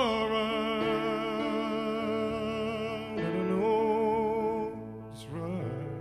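Male lead singer holding two long sung notes with vibrato, the first about three seconds long and the second shorter, over a live band's acoustic guitar and keyboard accompaniment.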